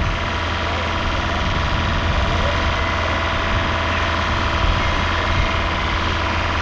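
Heavy diesel engine running steadily at idle, an even, unchanging hum with no revving.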